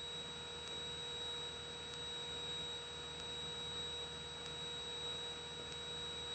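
Faint steady electrical hum with a thin high-pitched whine, as heard on a light aircraft's intercom audio feed; the engine is only a faint low drone underneath.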